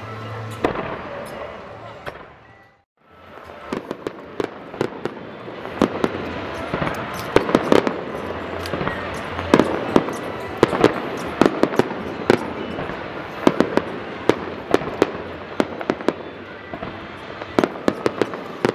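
Music with steady held tones stops abruptly into a moment of near silence. Then a rapid-fire aerial fireworks barrage (starmine) begins, shell after shell bursting with sharp bangs, two or three a second, over continuous crackling.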